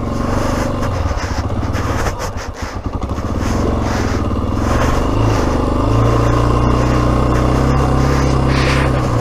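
Yamaha XT600E's single-cylinder four-stroke engine running in gear. About two seconds in the revs drop to slow, uneven firing; then they pick up and hold a louder, steady note for the rest of the time.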